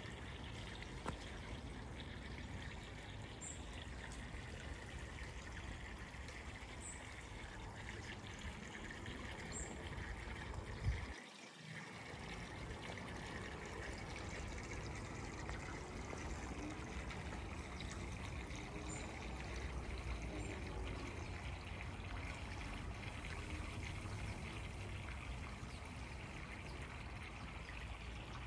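Steady trickle of water running into a garden pond. A single knock about eleven seconds in, followed by a brief drop in the sound.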